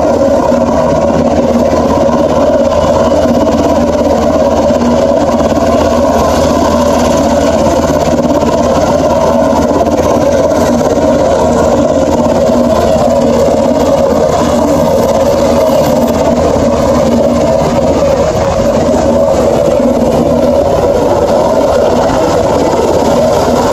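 Black Hawk-type twin-turbine military helicopter running on the ground with its rotor turning: a loud, steady turbine-and-rotor noise that holds level throughout.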